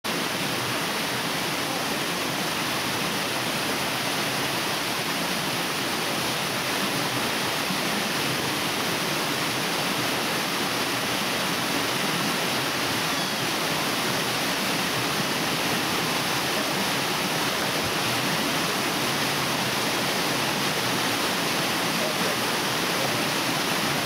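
Minoh Falls, a tall waterfall, plunging into its pool: a steady, even rush of falling water.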